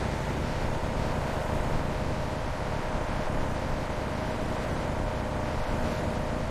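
Steady mechanical drone with a faint constant hum over it, even throughout.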